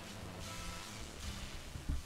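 Music from an FM broadcast playing through a crystal radio's speaker, under a steady hiss, with a low thump shortly before the end as the telescopic antenna is handled.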